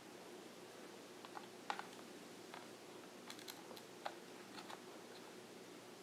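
Small sharp clicks and taps of fingers handling a mini-PCIe 3G modem card as it is seated in a netbook's slot, about eight of them scattered over a few seconds, the loudest about a second and a half in, over a faint steady hum.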